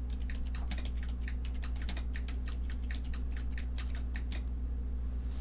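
Typing on a computer keyboard: a quick run of key clicks, about five or six a second, stopping shortly before the end, over a steady low electrical hum.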